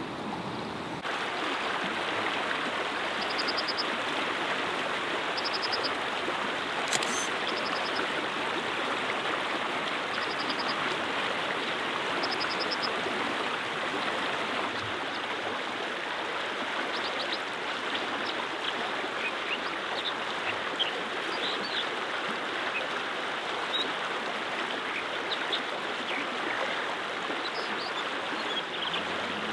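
Rocky stream flowing steadily, an even rush of water over stones, with faint short high chirps here and there.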